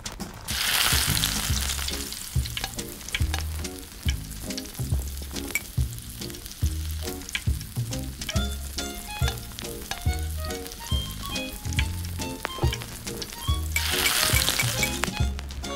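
Miniature frying pan sizzling as sliced onion goes into hot melted butter about half a second in, then small clicks of a tiny spoon stirring, and a second burst of sizzling near the end as sauce is poured into the pan. Background music with a repeating bass line runs underneath.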